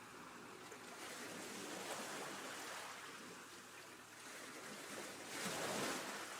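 Choppy seawater washing and slapping in uneven surges that swell and ebb, the loudest wash coming about five and a half seconds in.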